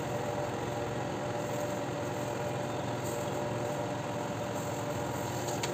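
Steady mechanical hum of a running motor, with faint steady tones in it.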